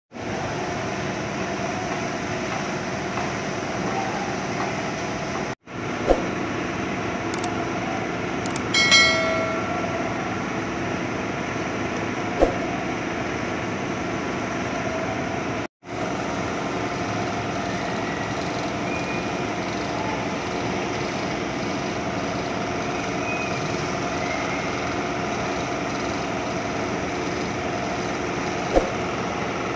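A steady mechanical hum of running machinery that cuts out for an instant twice, with a brief high-pitched tone about nine seconds in.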